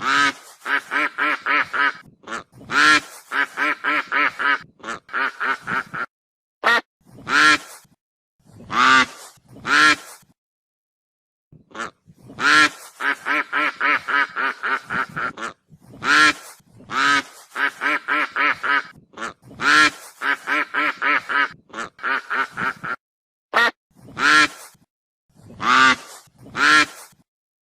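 Goose honking: loud single honks alternating with quick runs of short, rapid calls, broken by a pause of about a second and a half near the middle.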